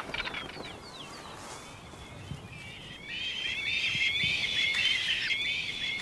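Caracaras calling: a few short, falling high calls in the first two seconds, then a dense run of chattering calls from about three seconds in.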